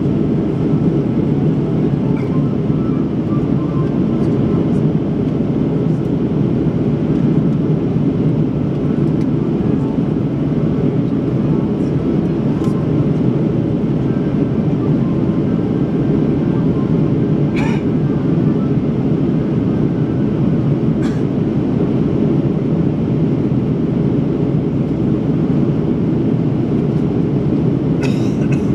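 Steady low roar of an Airbus A330's jet engines and rushing air, heard inside the passenger cabin in flight after takeoff. A few faint clicks sound now and then.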